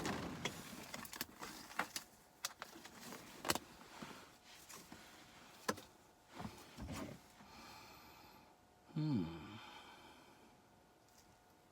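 Scattered small clicks and knocks of objects being handled, then a brief sound that slides in pitch about nine seconds in.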